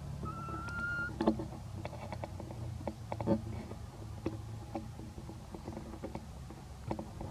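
A young macaque gives one thin, slightly rising coo call lasting about a second near the start. Scattered sharp taps and knocks follow, two of them louder, over a steady low hum.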